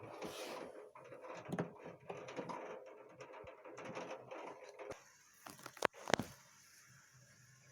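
Heavy rain pattering and ticking in dense, rapid drops against a window. About five seconds in it drops quieter, with two sharp knocks about a second later.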